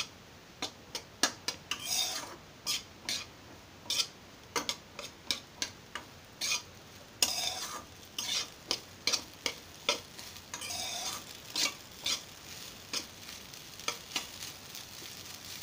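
Flat steel spatula scraping and knocking against a black non-stick kadai while stir-frying rice, in irregular strokes about once or twice a second, with a few longer scrapes.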